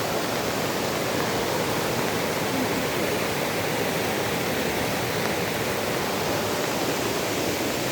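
Floodwater rushing steadily, a continuous even rush of fast-flowing water.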